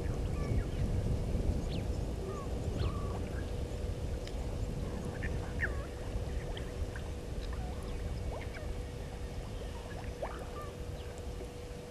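Outdoor bush ambience: a low wind rumble on the microphone with a faint steady hum, and scattered short bird chirps and whistles throughout.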